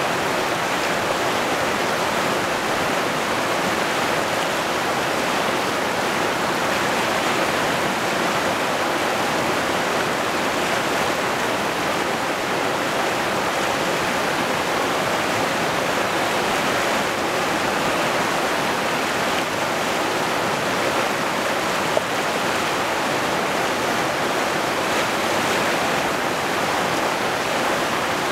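River rapids rushing steadily over boulders, a constant whitewater noise. One brief click comes about three-quarters of the way through.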